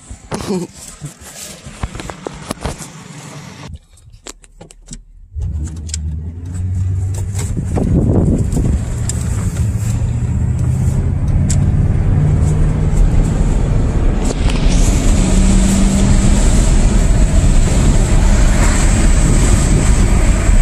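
Clicks and knocks for the first few seconds. About five seconds in, a car's engine comes in suddenly, heard from inside the cab. The vehicle then pulls away and speeds up, and engine, road and wind noise grow steadily louder.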